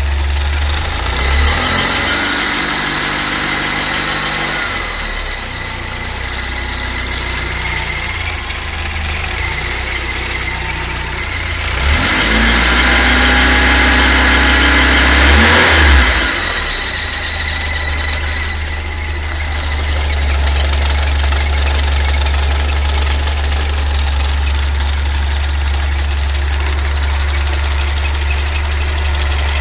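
Fiat Uno EP's engine idling and being revved twice. Each rev brings in a high-pitched whine on top of the engine. This is the unidentified engine noise the owner is asking for help with.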